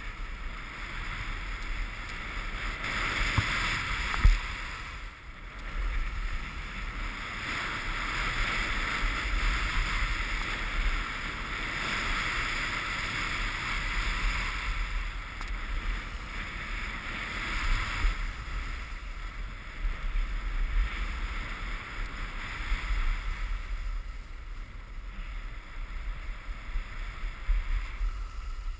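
Wind buffeting the camera microphone: a steady rushing hiss over a deep rumble, swelling and easing, with one sharp knock about four seconds in.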